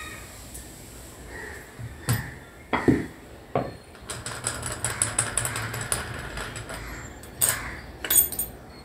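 Metal knocks and clinks from a spanner working the nut on a dumbbell rod. There are three separate knocks, then a few seconds of rapid light rattling, then two more knocks near the end.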